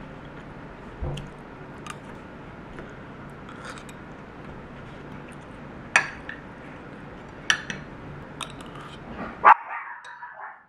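Metal spoon clinking against a glass bowl several times while eating, over a steady faint hiss. A brief, louder sharp sound comes near the end.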